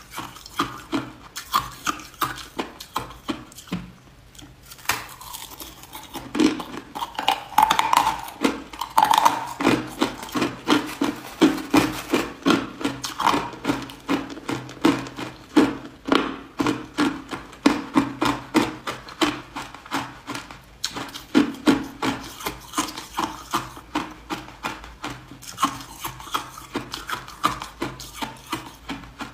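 Close-up crunching of crushed ice and small round ice balls being bitten and chewed, a steady run of sharp crunches about two a second, with a brief lull about four seconds in.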